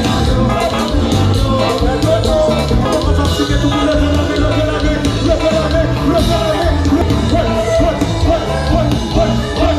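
Kompa band playing live, with a steady pulsing bass beat and a sung lead vocal over it.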